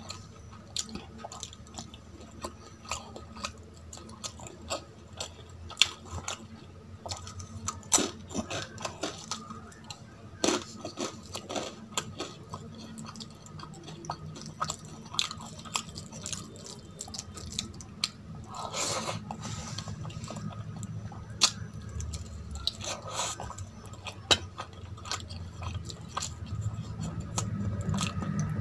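Close-miked eating sounds: chewing with wet mouth smacks, and the squishing of fingers mixing rice into curry on a steel plate, with many irregular sharp clicks.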